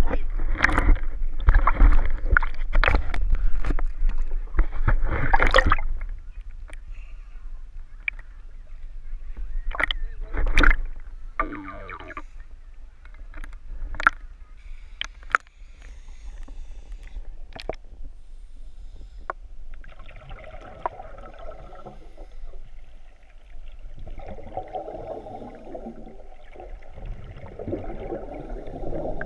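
Water sloshing and splashing around a camera at the lake surface for the first several seconds, then scattered clicks and knocks through the water. From about two-thirds of the way in, a scuba diver's regulator exhaling: bursts of bubbling, a few seconds apart.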